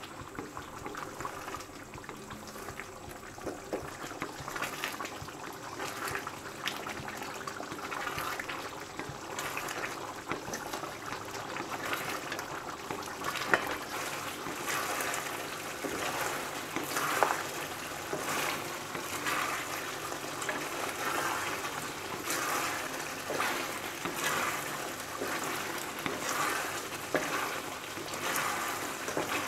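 Mutton karahi gravy bubbling and sizzling in a wok over a high flame while a wooden spatula stirs through it, the strokes coming more regularly in the second half. The water in the gravy is being cooked off.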